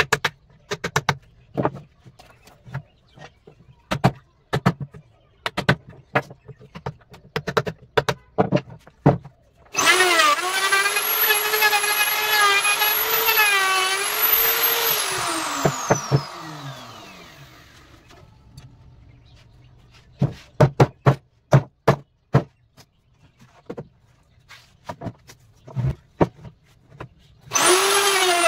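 A hammer strikes a chisel into wood in a quick run of sharp knocks. About ten seconds in, an electric plunge router starts with a high whine and cuts for about six seconds, then winds down, its pitch falling. Scattered knocks follow, and the router starts up again near the end.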